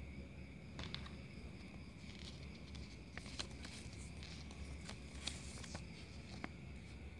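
Paper leaflets and thin white cardboard being handled: light rustles and a few sharp crinkles and clicks as a phone's quick start guide and box inserts are picked up and turned over. A steady high cricket chirr runs behind.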